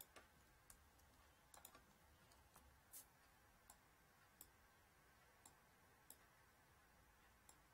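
Faint computer-mouse clicks: about ten single clicks at irregular intervals over near-silent room hiss, as the cursor selects and drags on screen.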